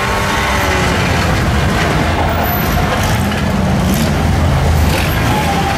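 Steady street rumble of car engines and traffic, with a low continuous roar under it.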